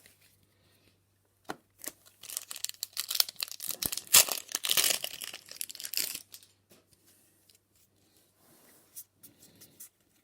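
A Flesh and Blood booster pack's foil wrapper being torn open and crinkled: a dense crackling run of about four to five seconds starting about a second and a half in, followed by a few light handling ticks.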